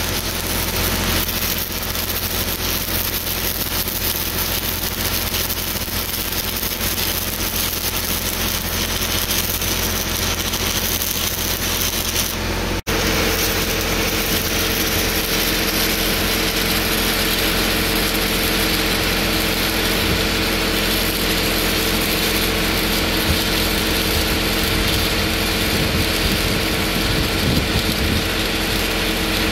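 Stick (shielded metal arc) welding on 4-inch steel pipe: the electrode's arc crackling and sizzling steadily, over a steady low hum. The sound breaks off for an instant about 13 seconds in, then carries on through the cap pass.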